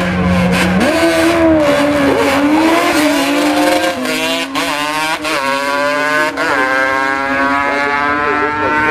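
Yamaha Banshee quad's two-stroke twin engine held at steady revs on the start line, then launching about a second in and revving hard down the drag strip. Its pitch climbs through each gear and drops briefly at each of several shifts.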